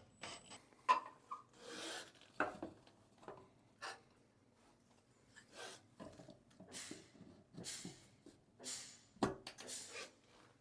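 Light handling noises of a plastic frame and its small screws being fitted by hand: irregular clicks, taps and short scrapes, with a sharper knock about a second in and another near the end.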